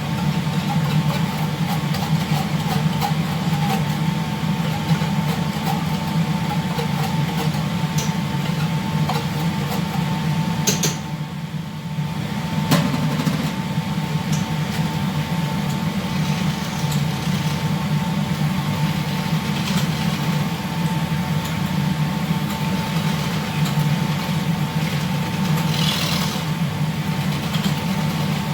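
Steady low machinery drone with a thin steady whine above it, as of a ship's engines and ventilation, with scattered light clicks and a knock about halfway through.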